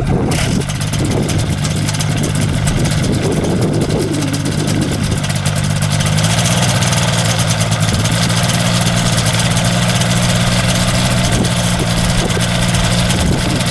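Microlight trike's engine starting and running at idle. The note is uneven for the first few seconds, then settles into a steady tone.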